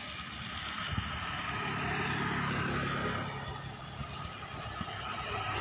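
Intercity bus engine running as it passes, swelling about two seconds in and easing off again a second or two later, over a steady hiss.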